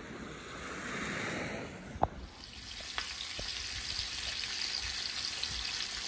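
Wind and sea noise for about two seconds, then a sharp click and a flatfish frying in oil in a frying pan, sizzling steadily.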